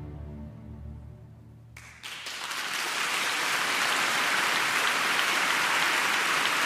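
The orchestra's final held chord fades out. About two seconds in, audience applause starts suddenly and builds within a second to steady, loud applause.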